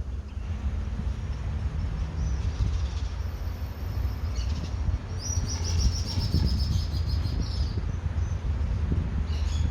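Birds calling: short high calls, then a rapid chattering trill that lasts about three seconds starting about five seconds in, and another brief call near the end, over a steady low rumble.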